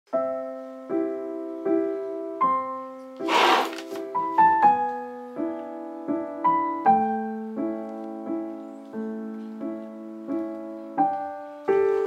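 Background piano music: a steady run of chords, a new one struck about every three-quarters of a second. A brief hiss rises over it about three seconds in.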